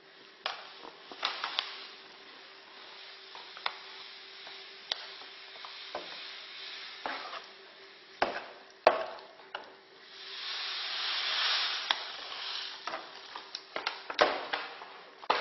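A spoon stirring boiling apricots in a copper jam pan as sugar is poured in from a paper bag: scraping and sharp knocks of the spoon against the pan, with a louder hissing stretch about two-thirds of the way through.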